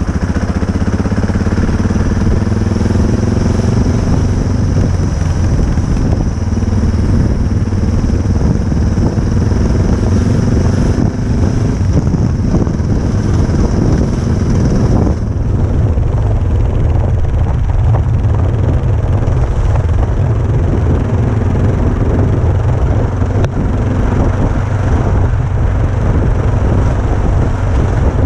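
Motorcycle engine running continuously, its pitch rising and falling in the first few seconds. A high hiss drops away about fifteen seconds in.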